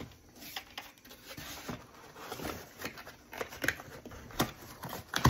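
Cardboard packaging rustling and scraping as a plastic Dyson V8 vacuum attachment is handled in its cardboard sleeve and box insert, with scattered light knocks and clicks that grow a little louder near the end.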